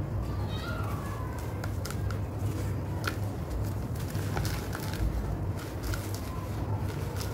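Dry sand-cement chunk being crushed by hand in a bucket: gritty crunching and crackling as it breaks apart, with grains and dust pouring down onto the bucket bottom, over a steady low background rumble.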